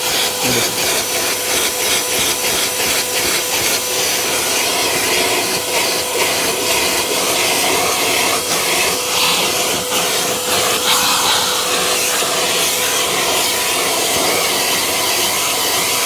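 Gaocheng vacuum cleaner running steadily, its nozzle rubbed back and forth over car floor carpet to suck up dust and grit; a steady rush of air with a constant whine underneath.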